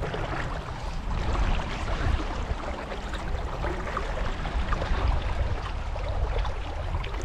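Steady rushing of fast river water through a rapid, with a low rumble underneath.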